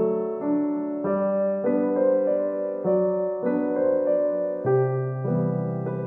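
Background music: a soft piano playing slow, held chords, with a new chord or note about every half second to a second.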